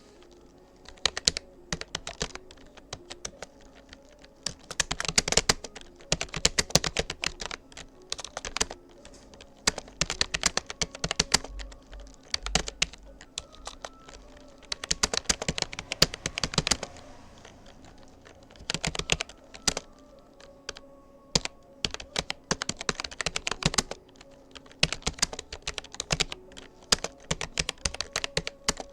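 Typing on a Rapoo computer keyboard: quick flurries of keystroke clicks broken by short pauses.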